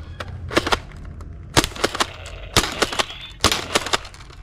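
Nerf Ranger pump-action dart blaster being pumped and fired, giving sharp plastic clacks and pops in quick pairs about once a second.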